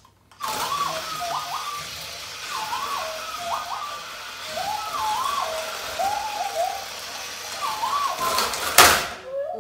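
Hasbro D-O remote-control droid toy chirping its electronic droid beeps from its small built-in speaker: short rising and falling warbling tones in clusters about every second, over a steady hiss. A single sharp knock comes near the end.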